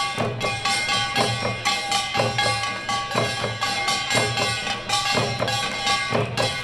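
Korean pungmul percussion: hand-held drums beaten together in a fast, steady rhythm, with a bright metallic ringing held over the beat.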